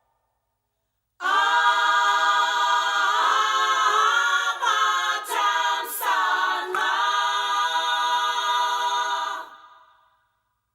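Music: voices singing a cappella in harmony, starting about a second in and fading out near the end.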